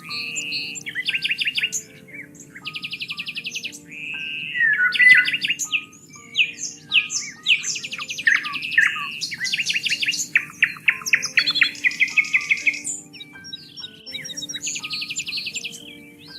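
Several songbirds singing and calling at once: rapid trills of fast repeated notes, quick chirps and whistled sweeps, overlapping with hardly a pause. A low steady hush and faint held low tones lie underneath.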